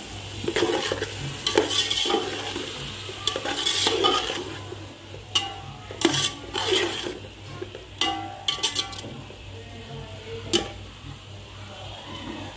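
A slotted metal spoon scraping and tossing shredded vegetables in a metal cooking pot. The stirring is dense for the first four seconds or so, then comes as a few separate sharp clanks of the spoon against the pot about six, eight and ten seconds in.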